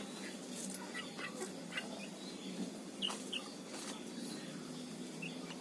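Chickens making a few faint short calls, with small handling clicks, over a steady low hum.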